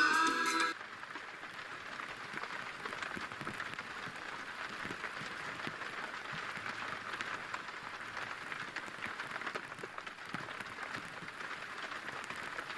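Music cuts off under a second in, leaving a steady, fine crackling patter.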